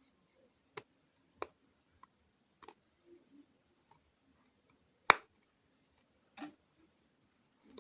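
Scattered light clicks and taps as a robot wheel is handled and pressed onto its motor shaft, with one sharper click about five seconds in.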